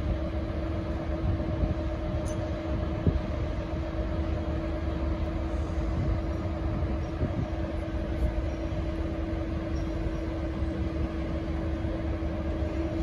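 V/Line N class diesel-electric locomotive running steadily, a constant low rumble with a steady hum, with one short knock about three seconds in.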